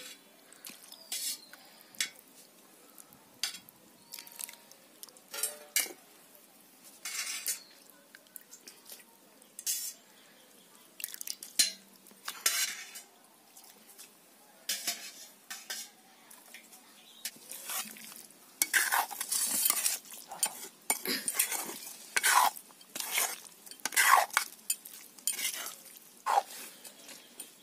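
Steel ladle and spoon clinking and scraping against metal cooking pots as rice and curry are dished out, in irregular separate clinks that come thicker and louder in the last third.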